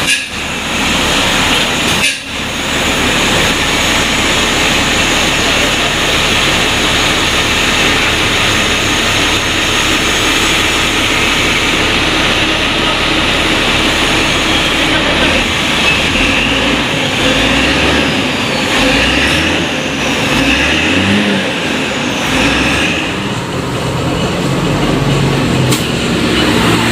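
Diesel engine of a Hino tour bus running, with a steady dense noise and, in the second half, a low engine note that rises and falls several times.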